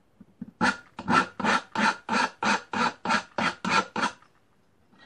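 Hand file rasping on the edge of a small jewellery workpiece in about a dozen quick downward strokes, roughly three a second, stopping about four seconds in. The edge is being filed square against a 90-degree guide.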